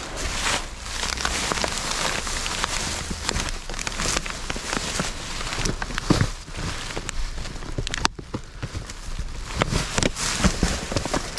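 Rummaging through discarded items: plastic and paper rustling and crinkling, with many scattered knocks and clicks of objects being moved.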